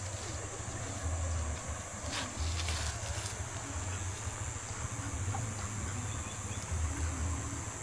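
Steady high-pitched insect drone, with irregular low wind buffeting on the microphone.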